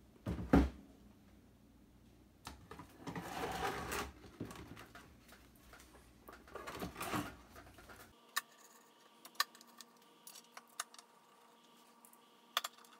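A Kustom Club Kasino amplifier chassis being pushed back into its cabinet: a knock about half a second in, then two scraping slides, one around three seconds in and one around seven. Scattered light clicks and taps follow.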